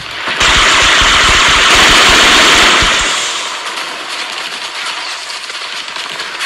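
Battle sound effect: a sudden loud burst of rapid gunfire under a roaring hiss, which fades away over about three seconds.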